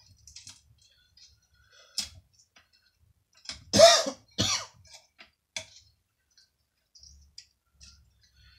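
A man coughing, loudest just before four seconds in, with a couple of fainter ones after. Light scattered clicks and knocks come from handling a wooden frame.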